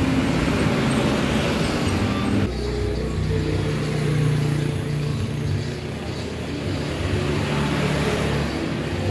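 Steady motor-vehicle and road traffic noise. About two and a half seconds in it cuts abruptly to a lower engine hum.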